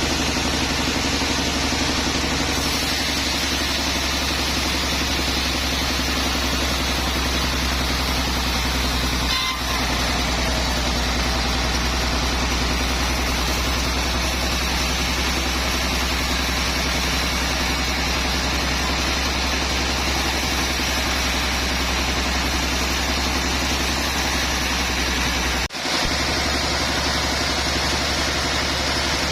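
Sawmill machinery running steadily: a constant engine drone with a strong low hum, dipping briefly twice.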